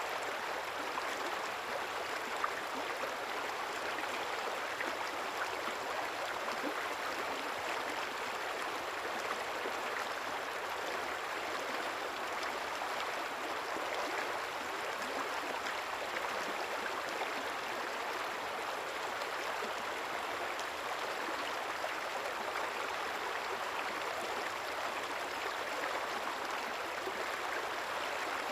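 River water flowing steadily, a continuous even rush with fine gurgling detail.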